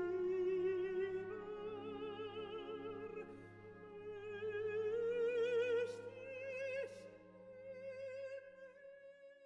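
Operatic singing: one voice with wide vibrato holding long notes that climb slowly in pitch, over a quiet, steady low accompaniment, fading away near the end.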